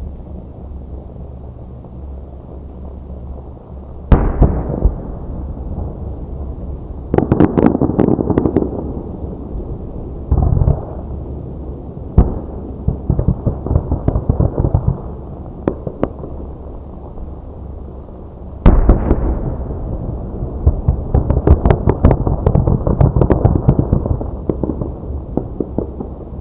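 Aerial fireworks bursting: a sharp boom about four seconds in and another about two-thirds through, each followed by long runs of dense crackling pops, over a low rumble.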